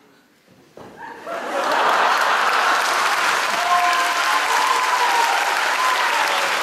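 Audience applause breaking out about a second in and quickly building to steady, loud clapping from a full hall.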